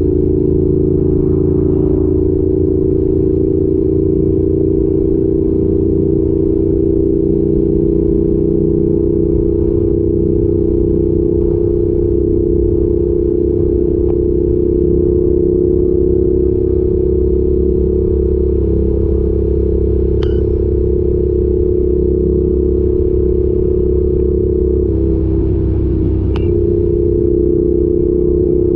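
Yamaha YZF R7's 689 cc parallel-twin engine through an aftermarket Arrow exhaust, heard from the moving bike, running at a steady cruising speed. The pitch dips briefly and comes back up near the end.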